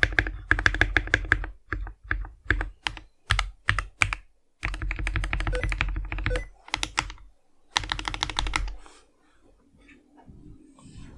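Custom mechanical keyboard with lubed, filmed switches, lubed stabilizers and a foam-dampened case, typed on. Fast runs of keystrokes alternate with slower single key presses, and it goes faint for the last couple of seconds.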